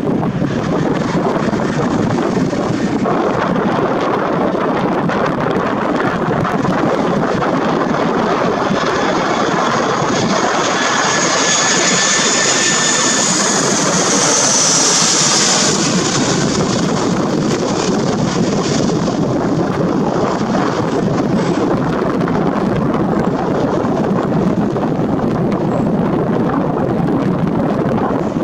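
Airbus A320's CFM56 turbofan engines on landing approach: a steady jet rumble that swells a little as the airliner passes low overhead about halfway through. High fan whines come and go around that pass, then the sound settles back to a steady rumble.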